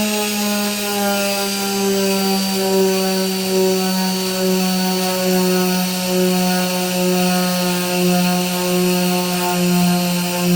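Chicago Electric rotary tool with a diamond bit drilling into a citrine crystal: a steady motor whine with a grinding hiss, its pitch sagging slowly as the bit bears into the stone.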